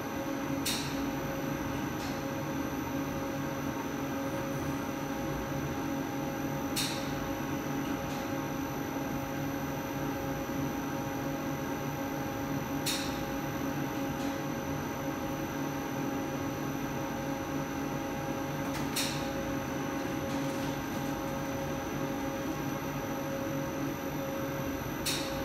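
Steady hum of a running plastics extruder, with a short sharp high-pitched sound repeating about every six seconds, five times.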